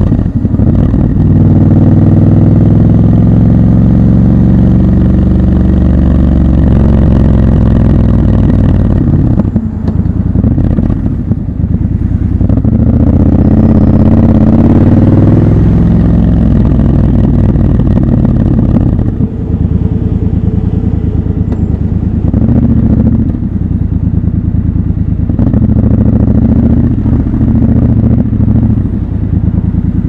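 Triumph Scrambler 1200 XC's 1200 cc parallel-twin engine running under way, its note rising and falling several times as the throttle is opened and closed.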